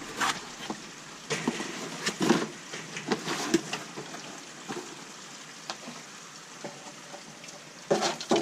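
Crackly rustling with scattered knocks and clunks as something is lifted and shifted into place by hand, the loudest knock about two seconds in and another near the end.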